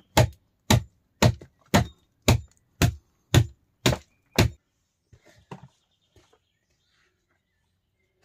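Axe chopping wood: nine sharp, evenly spaced blows at about two a second, stopping about halfway through.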